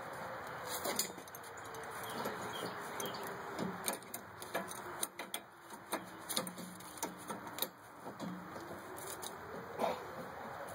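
Irregular metallic clicks and clinks of a wrench working the nut on a pivot screw of an antique Singer cast iron treadle pedal. A faint hum slowly falls and then rises in pitch underneath.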